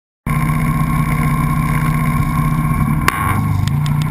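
An ATV engine running steadily close to the microphone, cutting in suddenly just after the start, with a sharp click about three seconds in.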